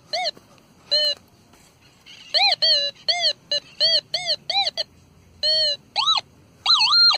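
Metal detector sounding its target tone as the search coil is swept back and forth over a buried metal object in sand: a string of short electronic beeps, each rising and falling in pitch as the coil passes over. About nine come in quick succession in the middle, and a longer, higher beep comes near the end.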